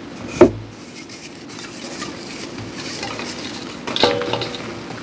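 Hard objects being handled: a loud sharp knock about half a second in, light scraping, then a ringing clink like dishware about four seconds in.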